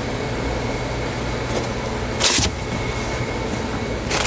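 A steady low hum with a faint high whine. About halfway there is a short loud scrape, and the whine stops. Near the end comes the rustling of a cardboard box and bubble-wrapped contents being handled.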